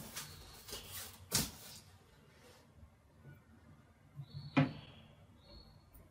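Handling noises on a wooden tabletop: a styrofoam packing block is rustled and set down with a knock about a second and a half in, then a plastic statue on its stand is set down with a sharper knock about four and a half seconds in.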